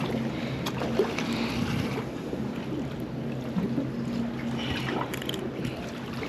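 Wind on the microphone and water noise around a boat, with a faint low steady hum that comes and goes and a few small clicks.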